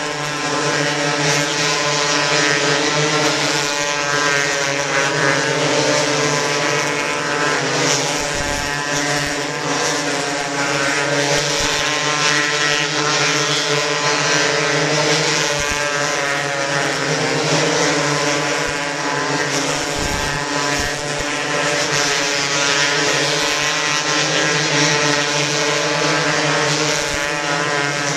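Engines of several 270-class micro sprint cars running together on warm-up laps, a continuous engine drone whose pitch wavers up and down as the cars circle.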